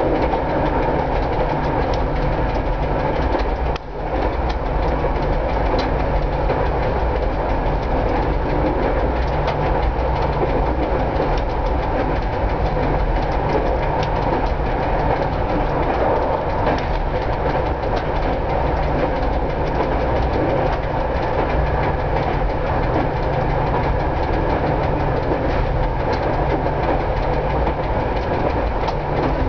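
Cab of a 1960s FIAT diesel railcar running steadily at about 90 km/h: the diesel engine's drone and wheels on the rails, with a constant ticking from the electromechanical speedometer/odometer and a click of rail joints about every second. The noise dips briefly about four seconds in.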